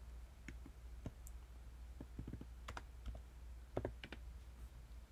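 Typing on a computer keyboard: about a dozen faint, irregularly spaced key clicks, over a low steady hum.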